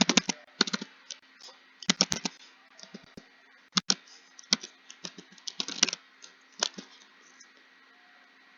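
Typing on a computer keyboard: key clicks in uneven bursts with short pauses and the odd louder keystroke, falling quiet for about the last second.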